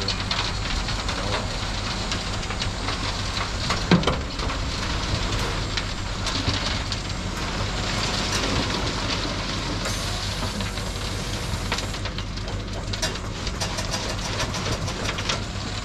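Vehicle engine running steadily with a noisy rumble, and a single sharp knock about four seconds in.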